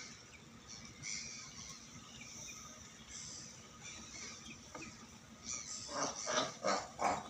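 Cape fur seals calling: faint scattered calls at first, then a quick run of short, louder barks near the end.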